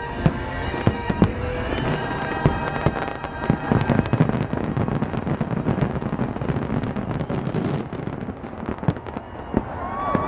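Fireworks show finale: a rapid, dense string of aerial shell bursts and crackling reports, with the show's music fading out in the first few seconds.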